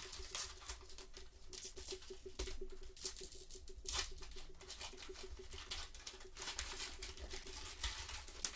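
Baseball trading cards being flipped through and shuffled by hands in nitrile gloves: a run of quick, uneven card slaps and rustles. Near the end, a pack wrapper is handled.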